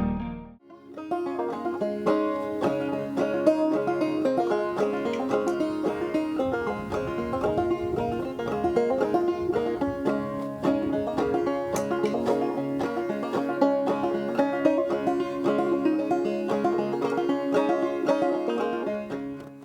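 Banjo picking a tune, with quick plucked notes ringing over one another. It starts about half a second in and fades near the end.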